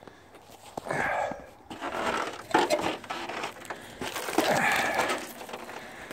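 Spruce boughs rustling and crunching as they brush against the recording phone, in several bursts: about a second in, around two seconds in, and a longer one between about four and five and a half seconds.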